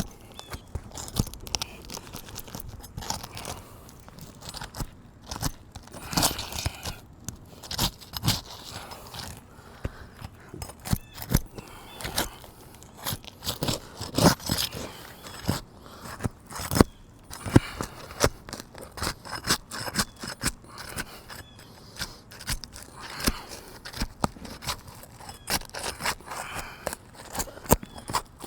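Asphalt roof shingles being pried up, making irregular crackling, scraping and crunching as the strong sealant strip tears loose and the shingles rip.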